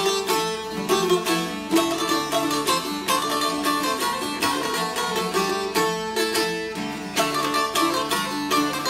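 Two long-necked Albanian folk lutes played together in a quick run of plucked, strummed notes: an instrumental passage of a folk song, with no singing.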